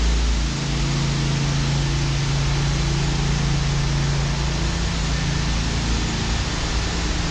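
Steady low hum under a constant rushing noise, the ambient drone inside a long concrete pedestrian underpass.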